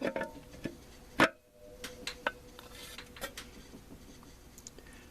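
Metal parts of a 4L60E automatic transmission clinking and knocking as they are handled and fitted together. A louder knock about a second in leaves a ringing tone for about two seconds, then a few lighter clicks follow.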